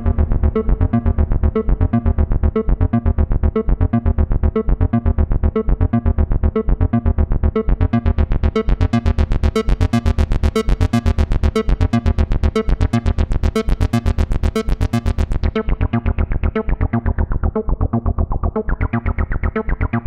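Access Virus TI synthesizer playing a fast, even bass sequence of short repeated notes. About eight seconds in, the filter opens and the tone turns much brighter as the filter envelope amount is raised. It then darkens and turns muffled as the filter cutoff is lowered.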